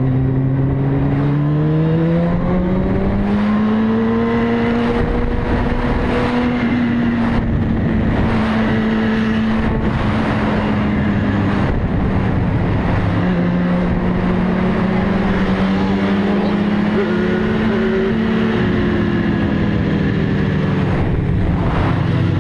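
Motorcycle engine running at speed under heavy wind rush: its pitch climbs over the first few seconds, holds, then slowly falls away through the rest.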